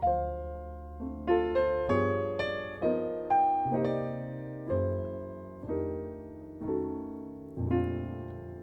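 Background music: a piano playing an instrumental passage of a song, chords and melody notes struck every half second or so over a bass line, each ringing and fading.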